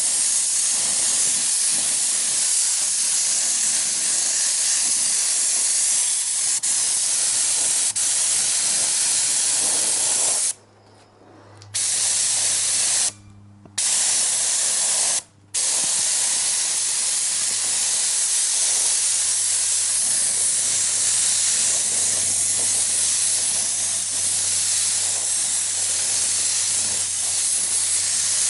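Compressed air hissing steadily from a pneumatic tool, cutting out three times in quick succession about halfway through as the trigger is released and pressed again. A faint low hum runs underneath from then on.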